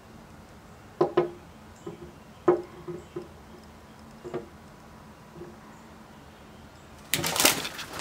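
A few light, sharp knocks of a shed antler tapping the wooden door trim as it is nudged toward a perched American robin. Near the end comes a short loud flurry of wing flapping and rustling as the robin flies off.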